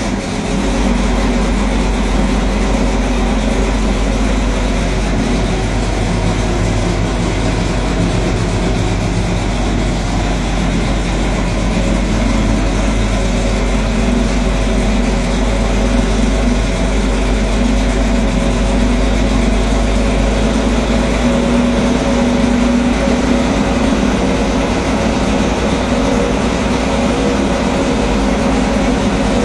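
Racing engine running steadily on an engine dynamometer, held just under 2,000 rpm on the dyno throttle, loud and even throughout.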